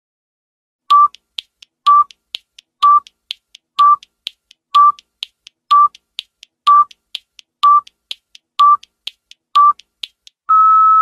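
Countdown-timer sound effect: a short beep once a second, ten in all, with a faint tick between each beep, then a longer, slightly higher tone near the end marking the end of the countdown.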